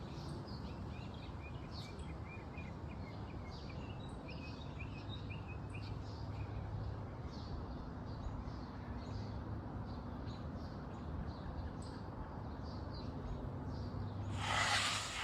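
Small birds chirping in short, quick notes over a steady low outdoor background hum. The chirping thins out after the first several seconds, and a brief rush of noise comes near the end.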